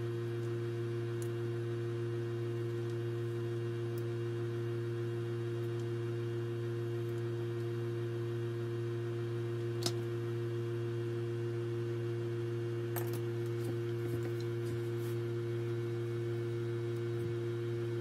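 Background music: a steady ambient drone of held low and middle notes, with a couple of faint clicks about halfway through.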